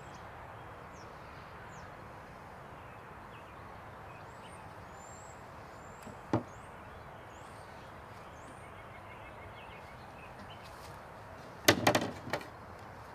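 Hard knocks of tools and a speed square against the plywood floor and wooden framing of a coop: one sharp knock about six seconds in and a loud cluster of clattering knocks near the end, over a steady outdoor background with faint bird chirps.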